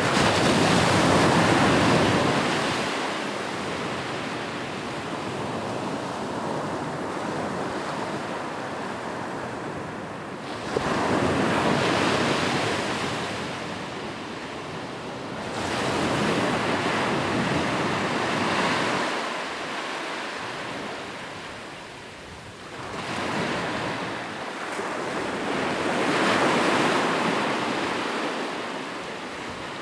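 Sea waves breaking and washing on shore, each surge of surf swelling and then fading, about every five to ten seconds.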